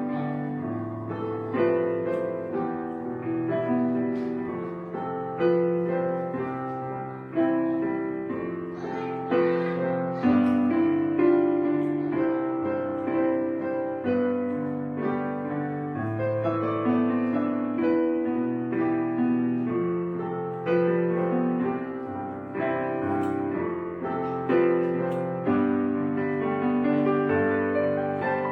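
Piano music: a steady flow of single notes and chords, each struck and left to fade.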